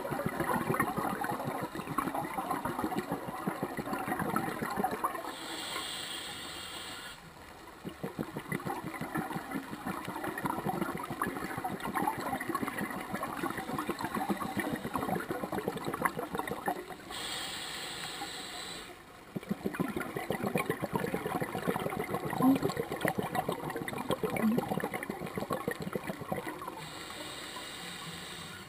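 Scuba diver breathing through a regulator underwater: long stretches of crackling exhaled bubbles, broken three times by a brief high hiss as air is drawn in, about once every ten seconds.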